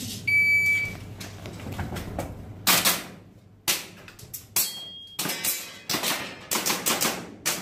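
A short high electronic beep, then a rapid, irregular string of about a dozen sharp shots from an airsoft gun.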